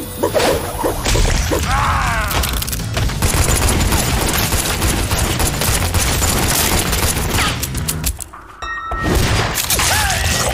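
Rapid gunfire in a shootout, many shots overlapping with crashes and impacts. It drops away briefly about eight seconds in, then starts again.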